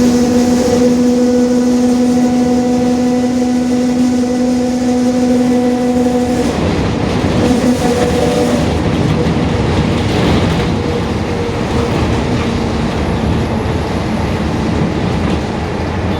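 Mercedes-Benz OF-1721 BlueTec 5 bus under way, its differential growling: a steady whine holds for about six seconds, then drops away into a rumble of road and engine noise.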